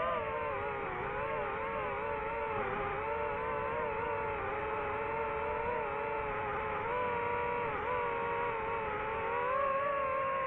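DJI FPV drone's motors and propellers whining steadily, the pitch wavering up and down with throttle and rising a little near the end.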